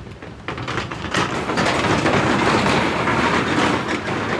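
Car tyres rolling over the ridged steel deck plates of a steel truss bridge, a rattling metallic clatter. It builds about a second in and stays loud.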